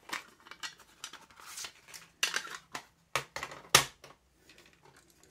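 Plastic audio cassettes and their clear cases being handled: a case opened and a cassette taken out, with a handful of sharp plastic clicks and clacks as cassettes are set down on a wooden table. The loudest click comes about three-quarters of the way through.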